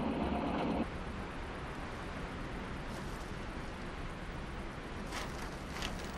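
A jeep engine and tyres running along a dirt road, cut off abruptly under a second in. Then a quieter steady hiss follows, with two faint brief rustles near the end.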